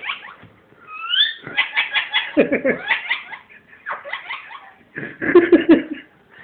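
Ringneck parrot doing its mimicked laugh: several bouts of quick, rapidly repeated 'ha-ha' notes, with a short rising squeak about a second in. The loudest bout comes about five seconds in.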